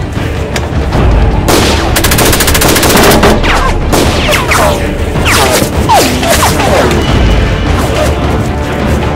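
Dubbed movie-style gunfire sound effects over a music track: a rapid burst of automatic fire about two seconds in, then scattered pistol shots with several falling whistles.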